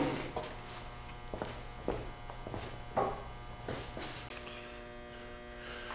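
A steady electrical buzzing hum with a few scattered light knocks and clicks.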